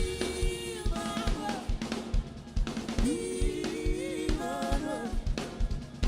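Live worship music: a drum kit keeps a steady beat of kick and snare hits with cymbal, under long held notes that slide between pitches.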